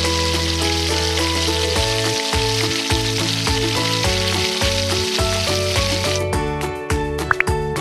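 Cauliflower pakoras deep-frying in hot oil, a steady sizzle, over background music. The sizzle cuts off about six seconds in, leaving the music and a few light clicks.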